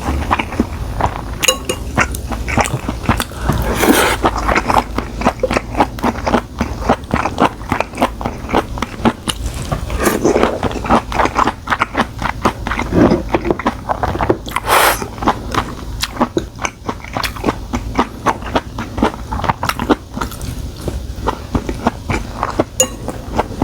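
Close-miked eating of stir-fried webfoot octopus: chewing and biting with a dense, continuous run of short clicks and mouth sounds.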